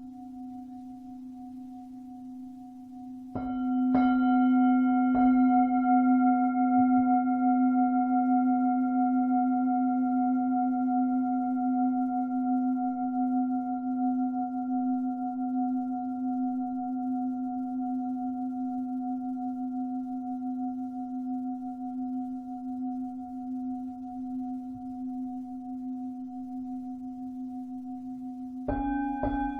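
Lingam singing bowl struck with a mallet: three strikes about three to five seconds in, then a long ringing decay with a deep hum and a slow wavering beat. It is struck again several times near the end.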